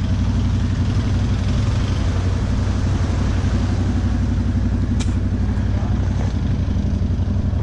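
ATV engine idling steadily, with a single sharp click about five seconds in.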